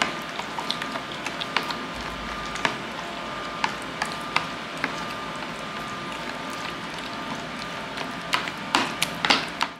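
Metal spoon stirring a thick, creamy ranch dressing in a plastic container: irregular clicks and scrapes of the spoon against the plastic as the mix is worked together.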